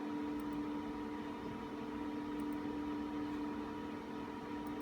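Steady hum of a running server's cooling fans, with a few fixed tones over a whooshing haze.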